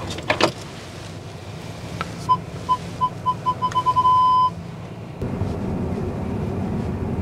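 Audi Q4 e-tron's parking sensor beeping, the beeps coming faster and faster until they merge into one continuous tone: the car is very close to an obstacle. A few sharp clicks come just before, and a low steady hum sets in about five seconds in.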